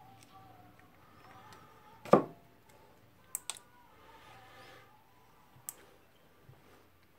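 A screwdriver prying at a retaining ring inside a Makita HR2470 rotary hammer, giving a few sharp metallic clicks, the loudest about two seconds in and smaller ones later. The ring is worn thin, which the repairer takes for the reason it comes out so hard.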